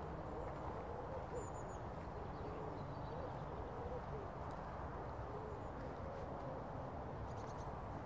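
Outdoor countryside ambience: a steady low rumble of wind or distant background noise, with faint soft hooting calls repeated through the first half and a few brief high bird chirps near the end.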